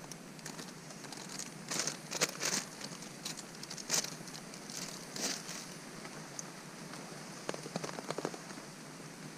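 A plastic food packet crinkling in several short bursts as dry mix is poured from it. Near the end, a spoon scrapes and clicks in a titanium cup, stirring the food.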